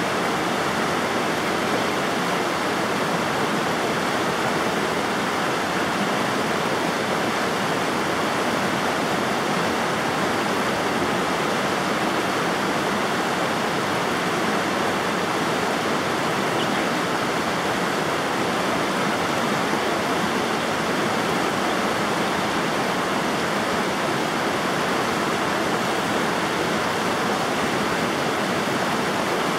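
River water rushing, a steady, even rush that never changes.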